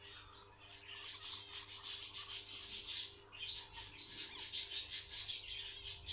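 Long-haired guinea pig moving about in straw bedding beside her newborn pups: a fast, irregular run of high rustling and squeaky sounds, starting about a second in.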